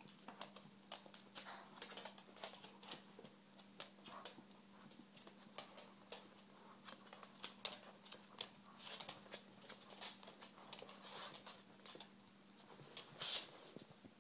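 Faint, irregular clicking and pattering of dogs' claws and paws on a wooden floor, under a faint steady hum that stops near the end, with one louder scuffing sound near the end.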